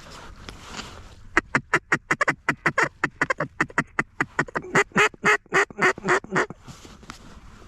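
Mallard duck call blown in a fast run of about thirty loud quacks, roughly six a second, starting about a second and a half in; the last notes are longer and wider spaced before the calling stops.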